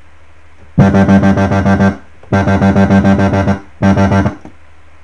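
Complextro synth patch from Native Instruments Massive played in three notes: about a second long, a longer one, then a short one near the end. Each note pulses rapidly in an even rhythm from the patch's LFO.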